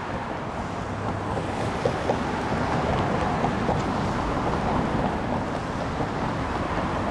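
Steady outdoor wind noise buffeting the microphone, a low rumbling hiss with no distinct events.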